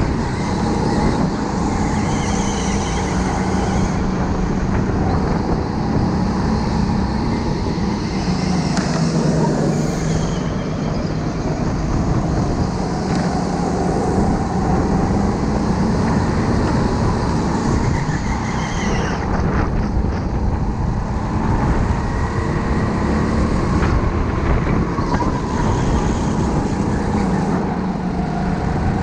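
Go-kart's motor running at speed, heard from on board, its pitch rising and falling as the kart speeds up along the straights and slows into corners.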